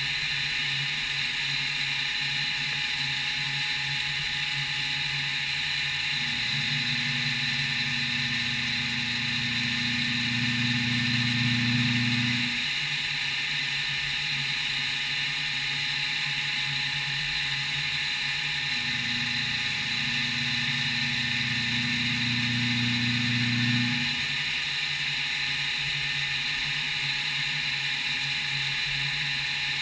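CNC milling machine running a machining operation on a mounting block: a steady high-pitched whine with a lower hum underneath that swells twice, for about six seconds each time, about six and nineteen seconds in.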